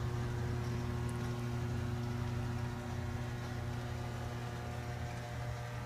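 Steady low machine hum of room equipment, an even drone with a few held tones and no changes.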